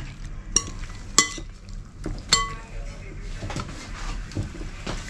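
Metal spoon stirring cuttlefish pieces in egg in a glass bowl, with a few sharp ringing clinks of the spoon against the glass in the first half and softer scraping between them.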